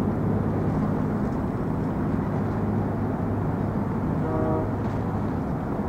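Steady city street ambience: a low engine rumble and hum of traffic, with a brief faint tone about four and a half seconds in.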